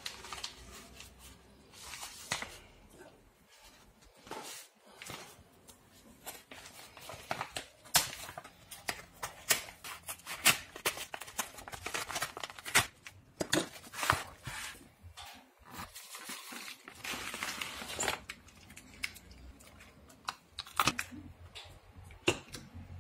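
Plastic padded mailer crinkling and rustling as it is handled and cut open with scissors, with many irregular sharp crackles and snips, busiest through the middle. Near the end, plastic blister packs are handled and set down on a wooden table.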